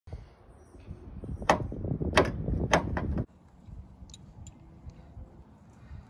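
1992–95 Honda Civic exterior door handle being worked: three sharp clicks about half a second apart over low handling rumble, breaking off suddenly; a couple of faint ticks follow.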